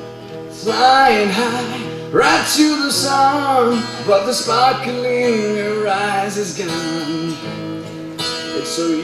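A voice singing a slow melody over a strummed and picked acoustic guitar; the voice comes in just under a second in.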